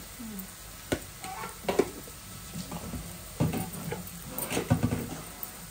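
Wooden spatula stirring and scraping through an onion and spice masala frying in oil in a nonstick kadai, over a low sizzle, with a few sharp knocks of the spatula against the pan.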